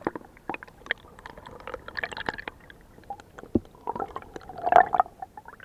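River water heard with the microphone under the surface in a shallow, stony stream: muffled gurgling with many irregular small clicks and crackles, and a louder bubbling gurgle about five seconds in.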